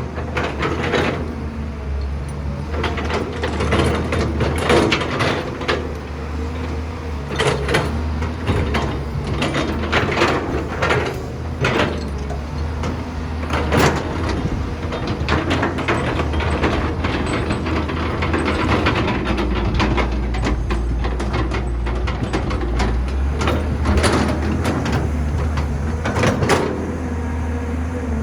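Excavator loading a dump truck: a steady diesel engine hum under repeated sharp clanks and knocks.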